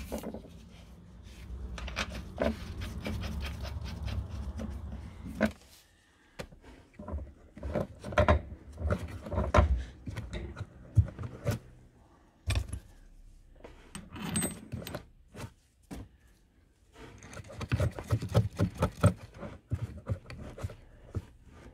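Handling noise from hand work on a car's rear suspension: scattered clicks, knocks and scraping of metal and plastic parts, with a dense run of rattling clicks near the end. A low steady hum underlies the first few seconds.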